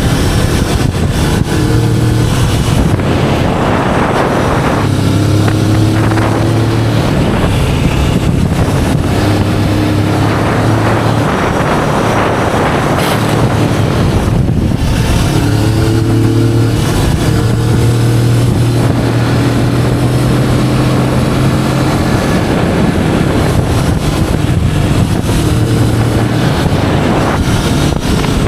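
Kawasaki Vulcan S 650's parallel-twin engine running steadily on the move through its stock exhaust, its note shifting now and then with throttle. Heavy wind noise buffets the action camera's built-in microphone, rushing louder in a few surges.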